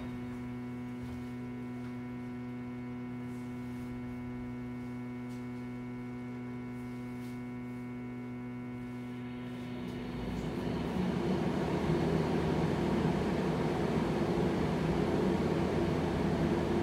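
Inside a Fukui Railway 880-series articulated tram: a steady multi-tone hum of the car's electrical equipment. About ten seconds in, the rumble of the running gear rises and takes over as the tram gets under way.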